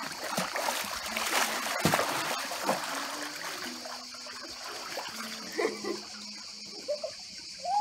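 Pool water splashing as a swimmer kicks a mermaid-tail monofin at the surface, busiest in the first three seconds and then quieter. Brief children's voices come in near the end, over a steady high-pitched drone.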